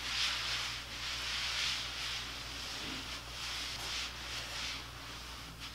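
A tanning mitt rubbing self-tanning lotion over the skin of a thigh in circular strokes: a soft swishing that swells and fades about once a second.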